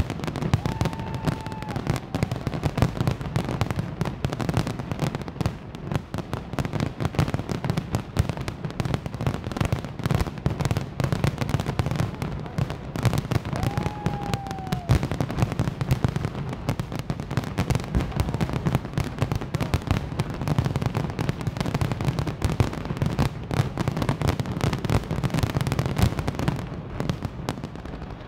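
Fireworks display in a dense, continuous barrage of rapid bangs and crackles. Two brief falling whistle tones cut through it, one about a second in and one about halfway through.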